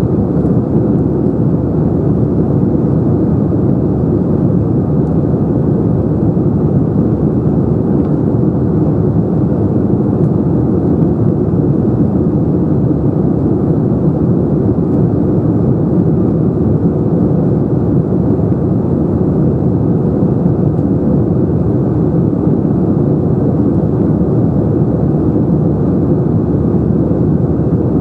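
Steady cabin noise inside an Airbus A321-211 in flight: its CFM56 engines and rushing air make an even, loud roar weighted to the low and middle range, unchanging throughout.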